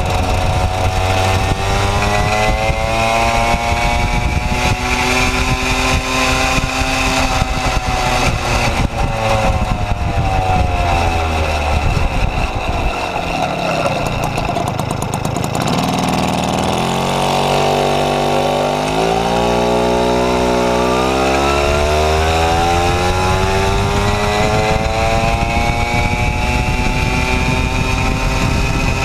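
Puch Maxi moped's 49 cc two-stroke single-cylinder engine running through a 28 mm exhaust, its revs slowly rising and falling. About halfway through the revs drop low, then climb back up in steps and hold steady near the end.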